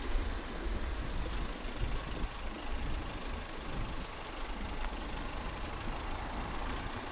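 A 4x4's engine running as it drives slowly along a dirt road, heard from the open side window, with tyre noise and wind rumbling unevenly on the microphone.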